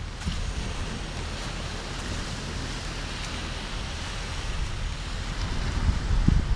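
Surf washing on the beach, with wind buffeting the microphone in a low rumble that gusts harder near the end.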